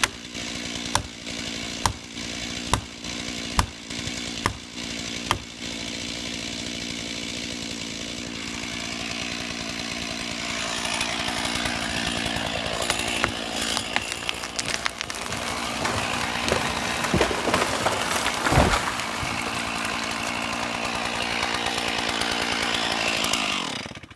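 Chainsaw running at idle while six sharp knocks come about once a second. About ten seconds in it is revved up and cuts into wood. Just before the end it winds down and stops.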